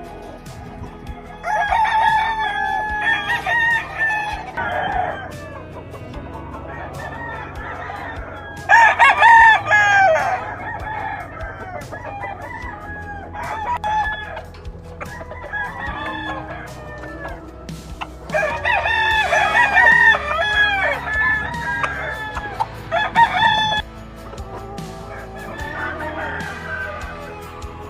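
Several roosters crowing in overlapping bouts, one call after another, with clucking between; the loudest bursts come about a third of the way in and again past the middle.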